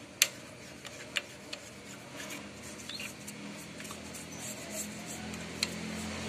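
Bristle brush scrubbing oily steel tubing on a pressure washer's frame with a diesel-and-soap mix: soft scratchy rubbing with a few light clicks, mostly in the first half.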